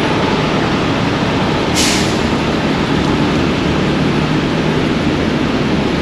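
Heavy-duty tow truck's diesel engine running steadily at close range, with a short burst of air hiss about two seconds in.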